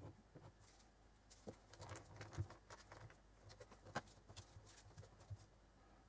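Faint handling noise: nitrile-gloved fingers rubbing and tapping on a small metal tin as its lid is pressed down, with a few light clicks, the sharpest about two and a half and four seconds in.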